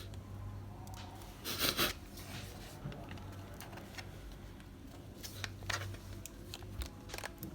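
Fingernail prying around the edge of a tablet's plastic casing: scattered small clicks, with short scraping rustles about one and a half seconds in and again past five seconds, as the casing's clips are worked loose.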